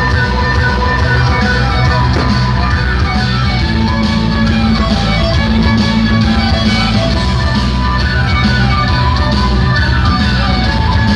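Loud music played over a mobile disco's sound system, with a heavy, steady bass and a busy melody line.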